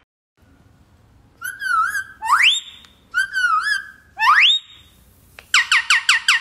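A pet parrot whistling: a warbling note followed by a rising whistle that climbs and holds, the pair given twice, then a quick run of about seven short falling notes near the end.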